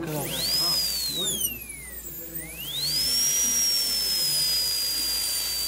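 Dental handpiece with a burr, whining. The pitch rises quickly, sinks over about two seconds, climbs again, then holds at a steady high whine. It is being used to finish and polish a composite class 4 restoration with a burr that is not a proper polishing burr.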